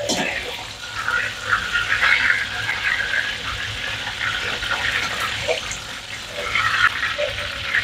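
Hot oil in a wok sizzling and crackling steadily around floured beef slices being deep-fried in a wire strainer. The sizzle sets in suddenly at the start.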